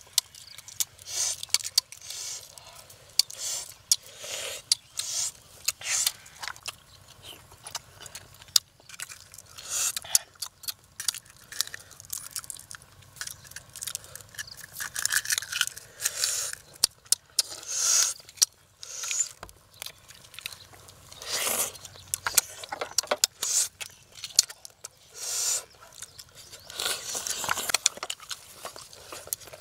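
Irregular eating sounds: cooked duck eggs being cracked, peeled and chewed, with a spoon scraping in a coconut-shell bowl of chili dip.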